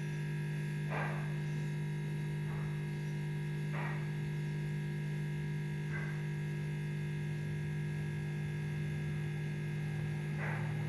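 Steady electrical hum, with five faint short sounds scattered through it.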